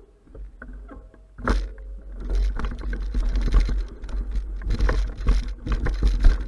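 Mountain bike rattling and clattering over rough forest ground, with wind rumbling on the camera's microphone. A single loud knock comes about a second and a half in, and from about two seconds in the knocks and rattles come thick and fast.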